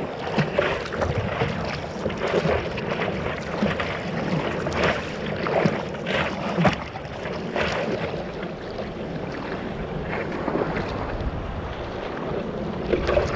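Water splashing and sloshing around a surfboard as a surfer paddles prone with his hands, close to the board, with irregular splashes from the strokes.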